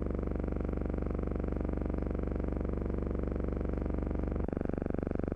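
A steady low buzzing hum with a fast flutter. About four and a half seconds in it shifts abruptly to a thinner tone with less bass.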